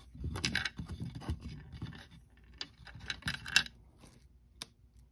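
Fingers picking through small metal jewelry pieces in a wooden box, rings and charms scraping and clinking against the wood and each other in several short flurries, with one sharp click near the end.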